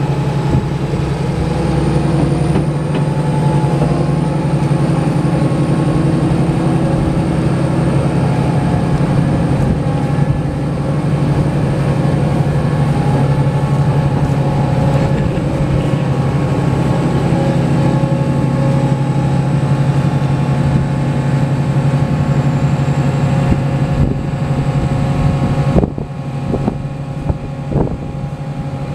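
John Deere 8130 tractor's six-cylinder diesel engine running steadily at idle, a low even drone with a thin high whine above it. Near the end it drops slightly in level, with a few short knocks.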